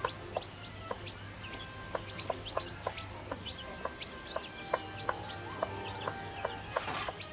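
Chickens clucking and chirping, many short calls a few per second over a steady background hiss.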